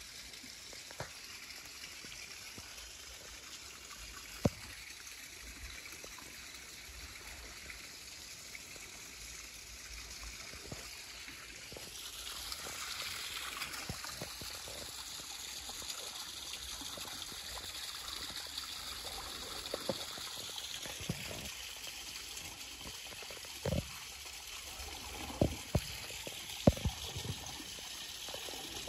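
Steady trickle of running water. A few sharp knocks, most of them near the end.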